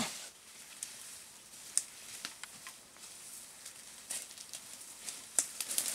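Scattered crackles and snaps of dry leaves and twigs underfoot, barefoot steps through forest leaf litter, with a few more clustered near the end over a faint hiss.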